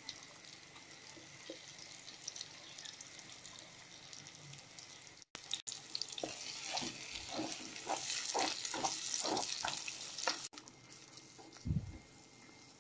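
Hot oil sizzling in a clay pot as wet ground masala paste goes in over frying shallots and tomatoes and is stirred through. The sizzle is faint at first, then louder in the second half with a run of quick stirring strokes. A low thump comes near the end.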